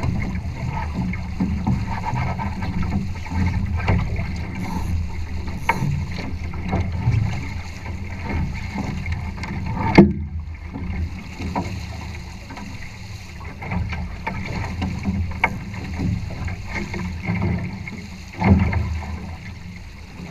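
Water rushing and slapping against the hull of a Challenger trimaran under sail, under a steady low rumble of wind on the camera microphone. A sharp knock about halfway through, and a louder surge of water near the end.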